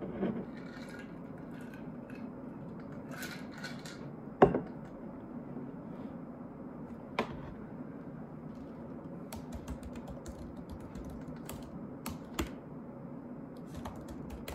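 Typing on a laptop keyboard: soft key clicks in scattered short runs, with a few sharper taps, the loudest about four and a half seconds in.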